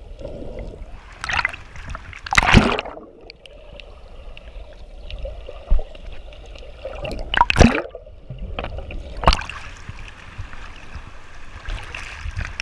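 Sea water heard from just under the surface: a muffled churning and bubbling, broken by several louder rushes of splashing. The strongest come about two and a half and seven and a half seconds in.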